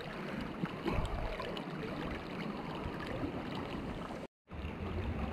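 Steady rush of river water flowing past a wading angler. The sound cuts out for a moment about four seconds in.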